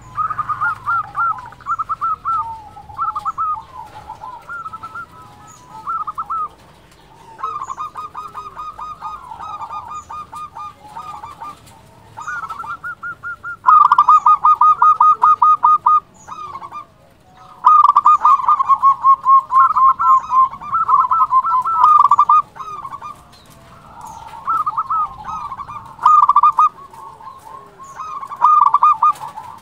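Zebra dove (perkutut) cooing in repeated bouts of rapid, staccato notes, each phrase lasting one to three seconds with short pauses between, the loudest bouts in the second half.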